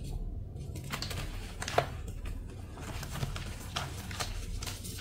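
Thin blocks of reformed gym chalk crunching as they are crushed: an irregular run of small sharp snaps from about a second in, the loudest just before two seconds, over a low steady hum.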